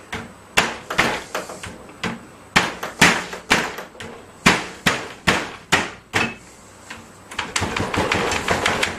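Ball peen hammer striking an HDMI cable in a test rig: about a dozen sharp, irregular blows over six seconds, then a rapid clattering scrape near the end.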